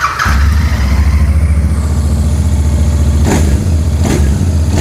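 Royal Enfield Bear 650's 648 cc parallel-twin engine started on the button: a brief starter whir, then it catches at once and settles into a steady idle, heard through its single exhaust.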